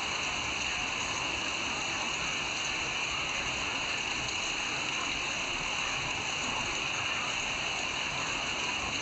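Steady rain: an even, unbroken hiss with no single drops or other events standing out.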